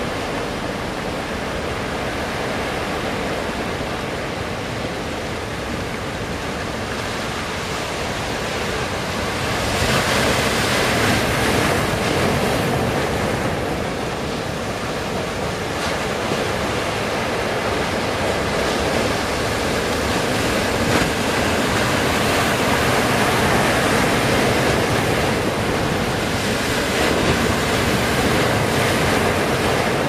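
Heavy ocean surf breaking and rushing ashore, with wind buffeting the microphone. The wash swells louder about ten seconds in and stays strong.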